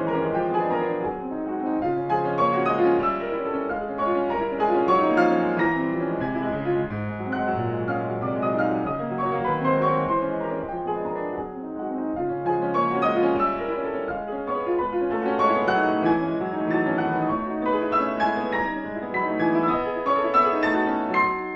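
Solo grand piano playing classical music: a fast, continuous flow of notes across the middle and upper keyboard, swelling and easing in loudness every few seconds.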